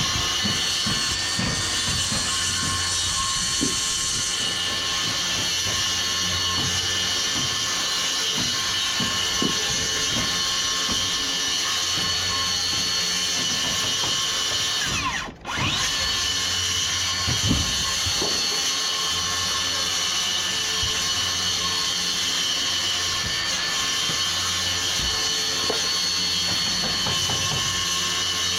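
An electric power tool's motor running steadily with a high whine. About halfway through it stops for a moment, then spins back up, rising in pitch.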